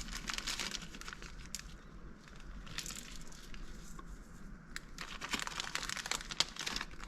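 Faint crinkly rustling and scattered light clicks and ticks of hands handling small parts.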